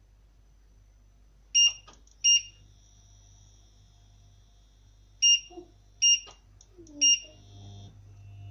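Induction hob touch-control beeps as the power setting is pressed: five short, high beeps, two about a second and a half in and three more a few seconds later. A low hum comes up near the end.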